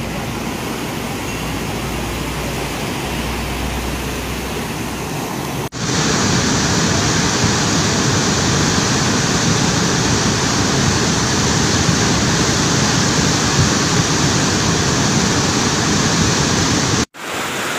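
Fast-flowing brown floodwater rushing and churning in a flash flood, a steady rushing noise. About six seconds in it jumps louder and brighter, and it drops out for a moment near the end.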